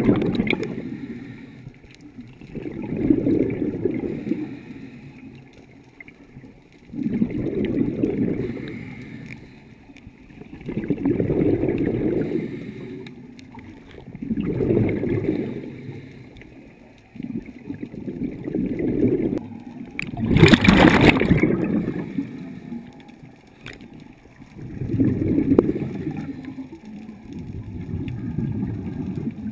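Scuba diver breathing underwater through a regulator: exhaled air bubbles gurgle out in a low rumbling swell about every four seconds, with one louder, hissier burst of bubbles about twenty seconds in.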